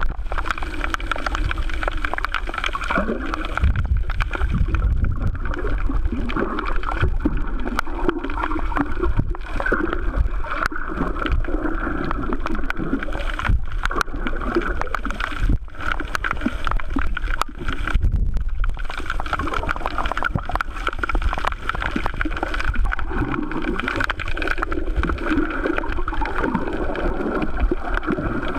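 Muffled underwater water noise picked up by a submerged camera: constant gurgling and a low rumble of water moving around it.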